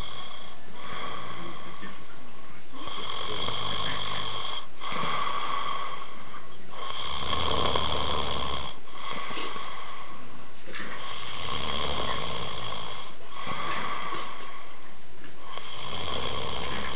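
A person passed out in deep sleep, snoring in a steady rhythm, with the loudest snores coming about every four seconds.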